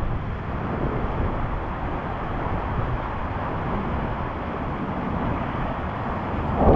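Steady rush of water and a rubber tube sliding down a water slide flume, with a sudden loud splash right at the end.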